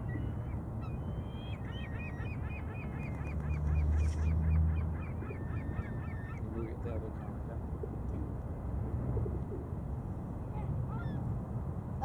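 Geese honking: a rapid run of short, repeated calls, about four a second, from about a second and a half in until around six seconds in, over a steady low rumble that swells briefly near four seconds.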